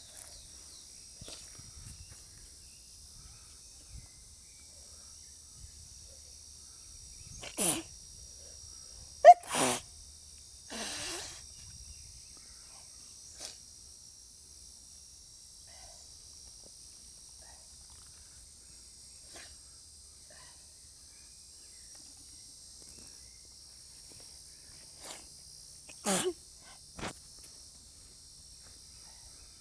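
A person sneezing several times in two clusters. The first cluster, about a quarter of the way in, holds the loudest sneeze; the second comes near the end.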